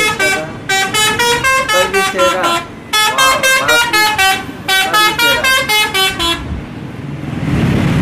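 Indonesian 'telolet' musical bus horn playing a quick tune of short, stepped notes in three runs. It stops about six and a half seconds in and gives way to a steady noisy rumble.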